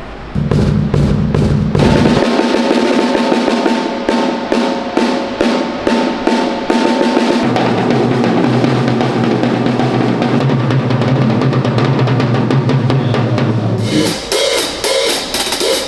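Drum kit played on a stage during a band's sound check: rapid, dense hits on drums and cymbals. A low steady tone sounds underneath for stretches.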